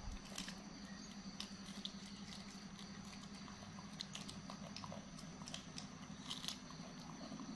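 Monkeys biting and chewing raw green beans: faint, irregular crisp crunches and snaps over a steady low hum.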